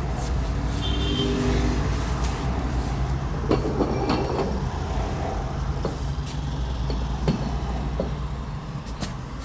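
Scattered metal knocks and clinks as an unbolted car AC compressor is worked loose and pulled out from under the car, over a steady low hum.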